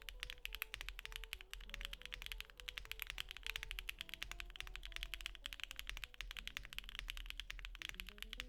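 Fast typing on a Neo80 mechanical keyboard with stock HMX Tequila linear switches in a POM plate and Domikey Terrazzo keycaps: a dense, quick run of keystroke clacks with no pauses.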